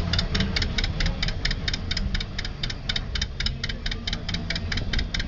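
Diesel engine of a Hunslet four-wheel diesel-mechanical shunting locomotive running, a steady low rumble with an even, fast ticking clatter of about eight ticks a second.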